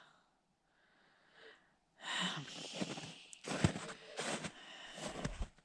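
Footsteps of rubber boots walking on patchy, melting snow, starting about two seconds in after near silence, with several separate steps.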